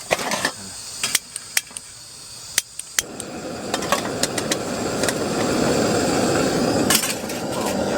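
A few clinks and knocks of cookware being handled, then from about three seconds in a steady rush of water running from a tap into a container, growing louder as it goes on.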